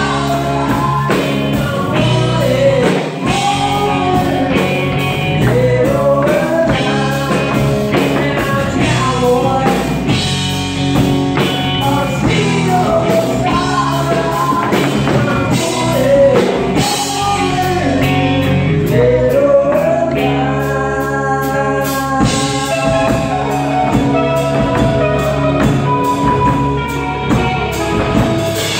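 Live rock band playing loudly with a male lead singer: electric guitar, bass guitar and drum kit keeping a steady beat, with a hand drum beaten alongside.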